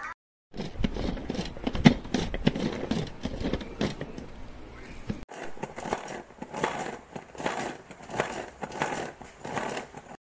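Irregular clicks, knocks and rustling from a plastic electric food chopper's bowl and lid being handled, with one sharper knock about two seconds in; no motor is running.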